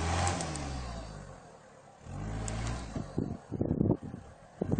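Mitsubishi Pajero 2 engine pulling the 4x4 up a muddy slope. Its note fades about a second in and picks up again about two seconds in. Near the end comes a cluster of loud, sharp thumps and crackles.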